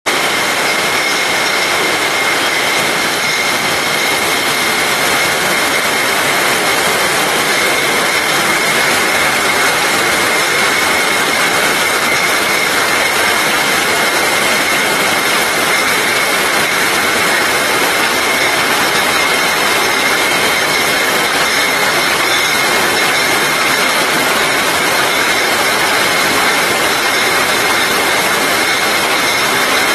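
Steady, loud running noise of a bottling line: conveyors carrying glass bottles and the machines on it, with a constant high-pitched tone held throughout.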